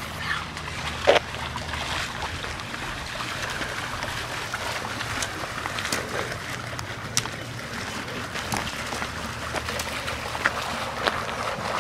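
Small stream trickling steadily, with scattered light clicks and a louder knock about a second in.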